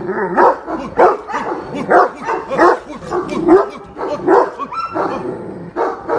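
A big shepherd dog barking over and over in deep barks, about one bark every half second to second.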